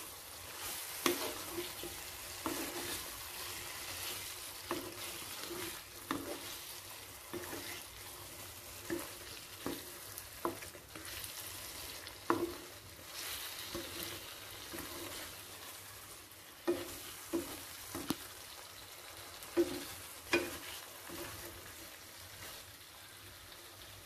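Thick chicken masala sizzling in a nonstick kadai as it is stirred with a slotted spatula, over a steady faint hiss, with irregular short knocks and scrapes of the spatula against the pan every second or two.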